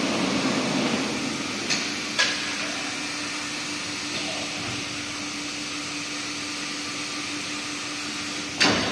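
Short-cycle laminating hot press line running: a steady machine hum with a low steady tone, louder in the first second. Two short sharp clanks come about two seconds in, and a louder one near the end.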